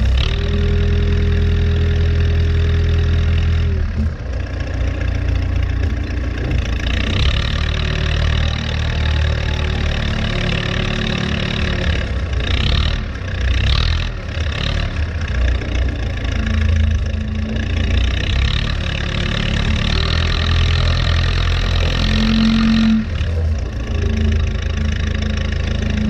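Diesel engine of a 1979 Allis-Chalmers 715B backhoe loader running under varying load, revving up and easing off while it pushes snow and lifts the front bucket. A steady whine comes and goes over the engine.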